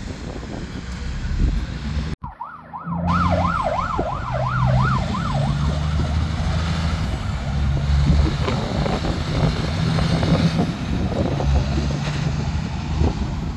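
Heavy diesel truck engine running as a prime mover with a low-loader trailer moves through a roundabout, over steady road traffic noise. About two seconds in, after a sudden break, an emergency-vehicle siren wails rapidly up and down, about three times a second, for some three seconds.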